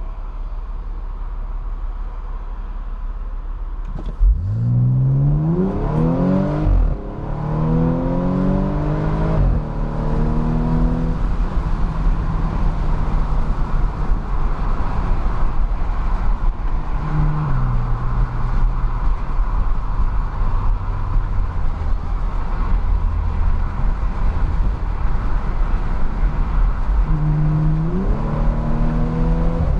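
Audi S5 engine heard from inside the cabin under full-throttle kickdown. About four seconds in it jumps in loudness and climbs in pitch, dropping sharply twice at upshifts, then settles into a steady drone with tyre and wind noise at speed. Near the end it pulls hard again with rising pitch.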